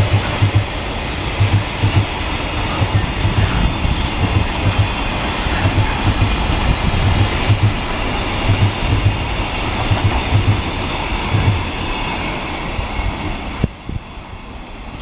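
Freight train wagons passing at speed, their wheels clacking over the rail joints in paired beats over a steady rumble. The sound drops off sharply near the end.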